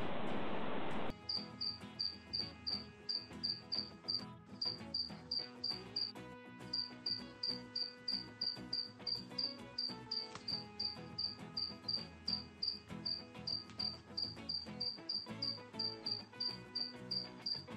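Insect chirping, like a cricket, in an even rhythm of about three high chirps a second, over soft background music with held notes. About a second in, a loud steady hiss cuts off just as the chirping starts.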